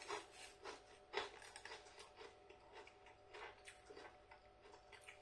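Faint, irregular crunching and crackling: crisps being chewed and the crisp packet crinkling as fingers reach into it.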